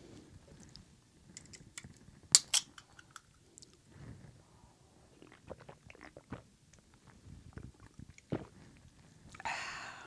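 A man chewing a bite of grilled steak, with scattered small mouth clicks and knocks. A brief hiss comes just before the end.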